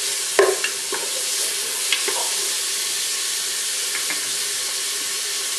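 Sliced red onion and grated garlic sizzling steadily in oil in a pressure-cooker pot. A few short knocks and scrapes of a stirring utensil against the pot come in the first two seconds and again about four seconds in.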